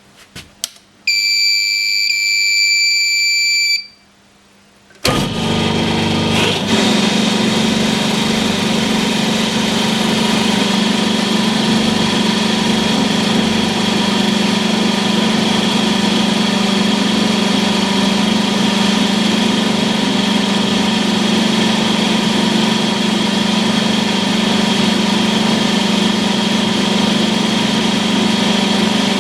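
A few clicks, then a pitched electronic beep for about three seconds. About five seconds in, the hydraulic test bench's pump drive starts and runs steadily with a constant low hum.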